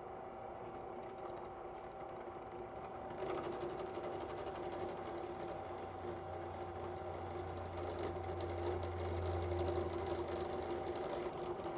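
Electric drill running steadily with a constant whine while its bit bores holes through bocote wood knife-handle scales backed by a block of wood. The rougher cutting noise joins the whine about three seconds in.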